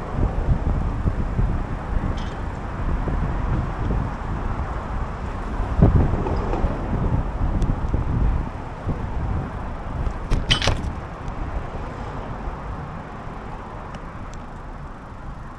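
Wind buffeting the microphone during a bicycle ride, a steady low rumble that eases off over the last few seconds, with one sharp click about ten seconds in.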